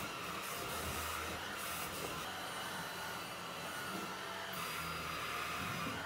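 Cuckoo InsPure PowerClone cordless stick vacuum running steadily as its small brush tool is worked over a fabric sofa cushion.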